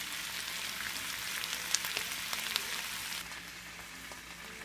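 Sliced zucchini and potatoes sizzling in a frying pan, with a few small crackles. The sizzle cuts off about three seconds in.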